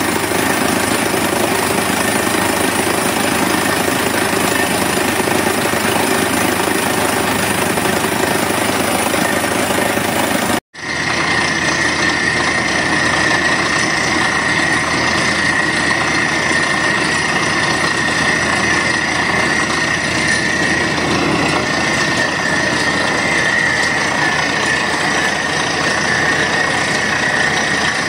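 Borewell drilling rig running under load: a loud, steady mix of engine, air and hammering noise as the drill works and compressed air blows rock dust up out of the hole. The sound drops out for an instant about ten seconds in, then carries on with a steady high whine added.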